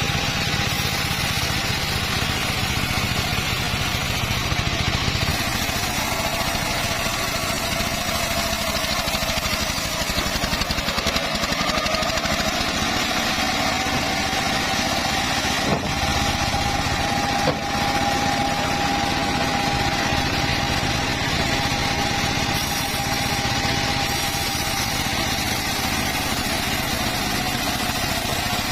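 Circular saw cutting teak wood, running steadily with its blade whine rising slightly in pitch partway through. Two sharp knocks come about a second and a half apart midway.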